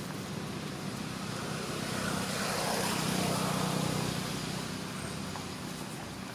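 A motor vehicle passing by: engine hum and road noise swell to a peak about three seconds in and then fade away.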